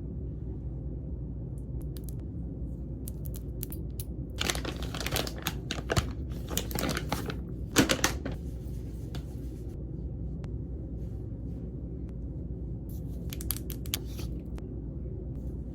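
Crinkling and rustling of something like paper or plastic being handled for a few seconds, over a steady low rumble, then a few light clicks near the end.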